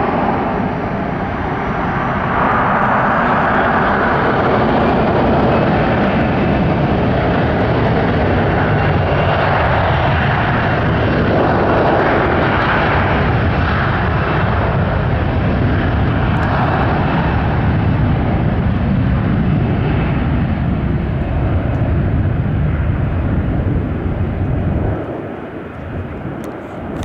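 Boeing 737-300's CFM56-3 turbofan engines at takeoff thrust, a loud, steady roar with a faint high whine, as the jet makes its takeoff run. The sound falls away a couple of seconds before the end.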